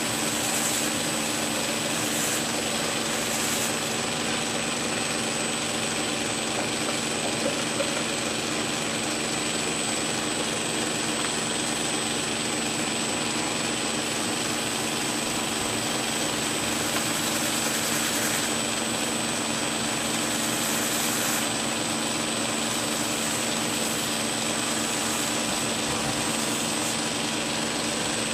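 Belt grinder running steadily, its abrasive belt over a metal contact wheel, with a steel straight-razor blade held edge down against it in the finish grind. A continuous even noise with a thin high whine throughout.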